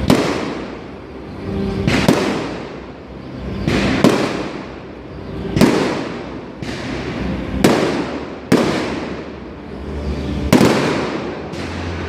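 Aerial fireworks bursting overhead: loud sharp bangs about every two seconds, about seven of them, each trailing off in a rolling echo.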